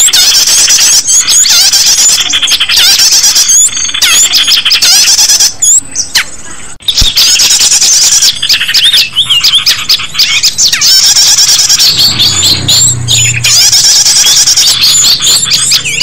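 Bird-lure recording of many small birds calling at once: a loud, dense chatter of rapid, high chirps and squawks, with a short break about six seconds in. A low hum joins the calls near the end.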